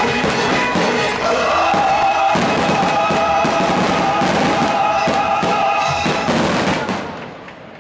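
A fireworks display of rising fountains and bursting shells, dense bangs and crackles over loud music with long held notes. The sound fades down over the last second or so.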